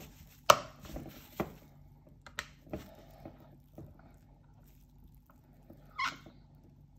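Scattered light knocks and clicks as a bolt and a plastic spoiler bracket are handled on a table while the bolt is threaded in by hand, the sharpest knock about half a second in, with a brief scuff near the end.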